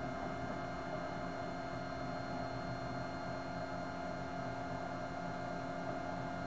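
Solidoodle 2 3D printer's Z-axis stepper motor whining steadily as it slowly lowers the print bed to its lowest position at the end of the print. It is an even hum made of several held tones.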